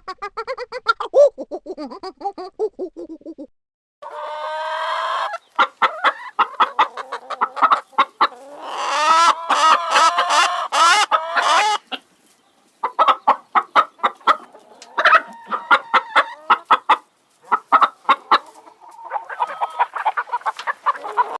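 Chickens clucking in rapid runs of short sharp notes, with a longer drawn-out call around the middle, a rooster crowing. A different lower animal call fills the first three seconds.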